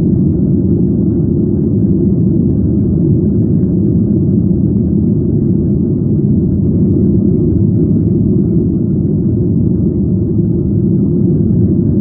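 Steady low cabin rumble of a Boeing 737-800 airliner in its climb after takeoff: jet engines and airflow heard from inside the passenger cabin.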